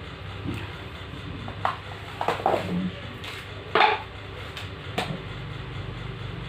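Handling noise: a few light knocks and clatters of hard objects, the loudest a little under four seconds in, over a steady low hum.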